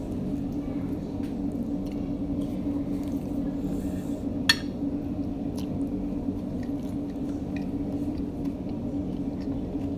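A steady low hum throughout, under faint small squishes and clicks of a plastic-gloved hand working rice and fish on a plate, with one sharp clink about four and a half seconds in.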